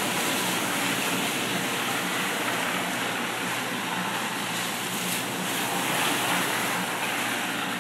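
Steady heavy rain falling on a paved town street and pavement, a dense even hiss. A car drives through the wet road late on, its tyres adding a swelling wash.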